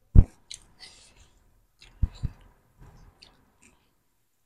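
Close-miked eating of a crunchy street snack: crisp crackling crunches and chewing, with a sharp low thud near the start and two more close together about two seconds in.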